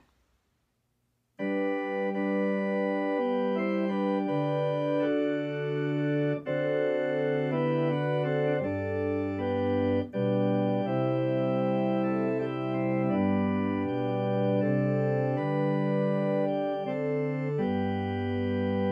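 Organ playing slow, held chords that change every second or so, starting about a second and a half in after a moment of silence, with brief breaks between phrases.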